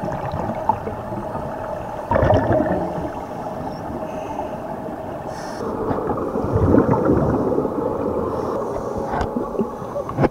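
Underwater sound of a diving pool picked up by a submerged camera: a steady hum under a bubbling rush, with louder surges of scuba divers' exhaled bubbles about two seconds in and again around six to seven seconds.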